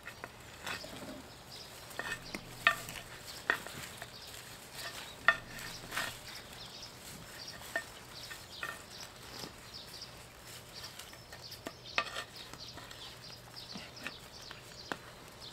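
Irregular scraping, crackling and a few sharp taps of soil and a black plastic nursery pot as gloved hands work a root-bound hydrangea loose from it.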